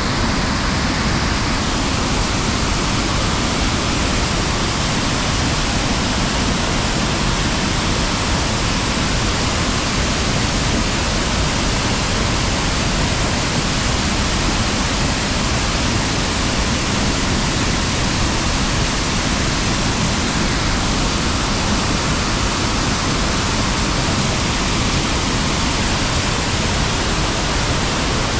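Muddy floodwater rushing in a rain-swollen mountain stream, with runoff pouring off the rock face into it: a steady, loud rushing noise.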